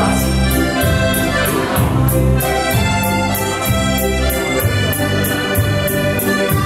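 Dance music playing loudly, with sustained melody notes over a quick steady beat of about four strokes a second.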